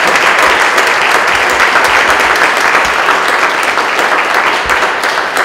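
Congregation applauding: many hands clapping at once in a steady, loud ovation that eases a little near the end.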